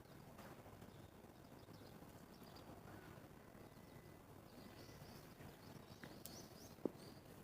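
Faint outdoor ambience with a few thin, high bird chirps, mostly in the second half, and one sharp click near the end.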